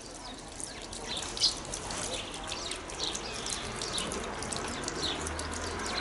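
Small songbirds chirping: many short, high chirps in quick succession, one louder chirp about a second and a half in.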